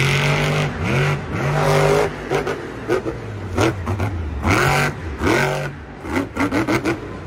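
Monster truck's supercharged V8 engine revving hard, its pitch climbing and dropping again and again as the truck wheelies and jumps on an arena dirt track.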